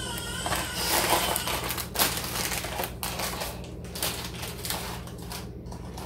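Brown sugar being scooped out of its packaging: irregular crunching scrapes, crinkling and light clicks.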